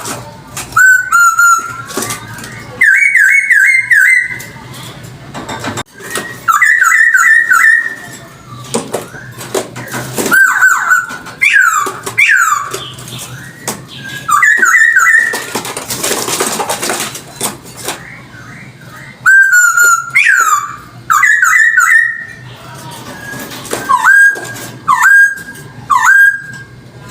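A Chinese hwamei (poksay hongkong) singing loud, clear whistled phrases. Notes are repeated in quick runs of three or four, and some swoop downward, with short pauses between phrases.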